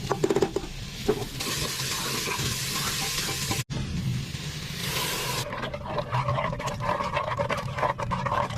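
Cooking sounds from a pot of soup: food sizzling in a steady hiss, with a busy patter of small clicks and bubbling from about two-thirds of the way in. There is a sudden break about a third of the way through.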